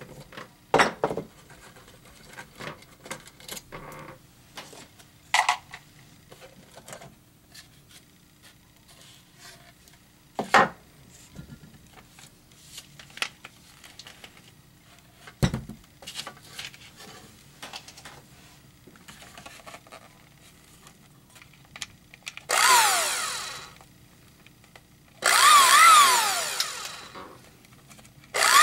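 Light scattered clicks and knocks of handling, then a Waring Ambassador blender's brushed motor switched on in short bursts, three times near the end, each whining up to speed and winding down with a wavering pitch. This is the motor whose commutator and brushes spark.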